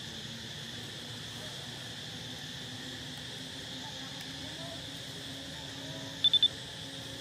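Steady high-pitched insect chorus. About six seconds in, three quick, loud, high beeps sound at the same pitch.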